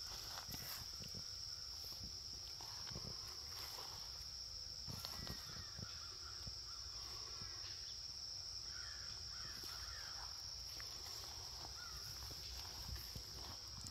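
Outdoor ambience: insects drone on one steady high pitch throughout, and faint bird calls come in around the middle.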